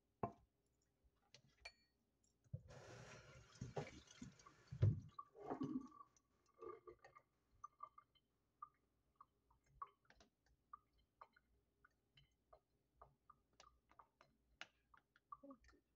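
Faint kitchen handling sounds of a glass jar and utensil: a brief rustling hiss and a single thump a few seconds in, then a long run of scattered light clicks and taps.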